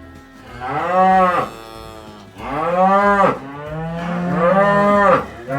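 Cows bawling: three long, loud moos one after another, each rising and then falling in pitch, with the start of a fourth at the very end. They are calling for their calves, which have been separated from them.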